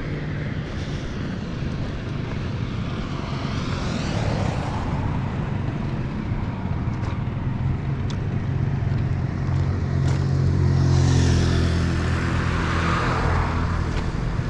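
Road traffic: a steady low engine hum, with vehicles passing by, one about four seconds in and a louder one near the end.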